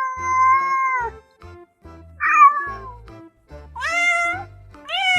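Domestic cat meowing repeatedly: a long meow fading out about a second in, a short one at about two seconds, then two more near the end, over background music with stepping low notes.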